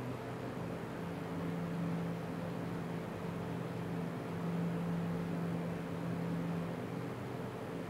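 Electric hand mixer running at a steady speed with a constant motor hum, its beaters whipping butter, powdered sugar and flour into a smooth cookie dough.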